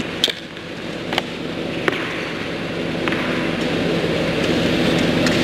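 A few sharp, irregularly spaced knocks of a tennis ball bouncing on an indoor hard court, over the steady hum of the hall.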